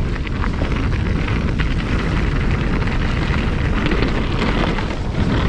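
Mountain bike riding fast on a trail: a steady rumble of wind on the microphone and tyres rolling over the ground, with many small rattles and clicks from the bike.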